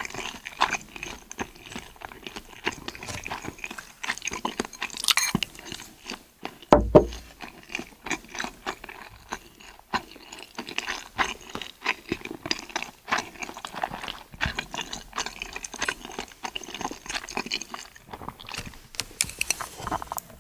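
Close-up eating sounds: chewing, and a metal spoon scraping and clicking against a plastic food container, with many small clicks throughout. A single loud low thump about seven seconds in is the loudest sound.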